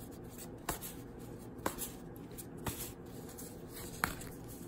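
A deck of tarot cards being shuffled and handled by hand: four short, sharp card taps about a second apart.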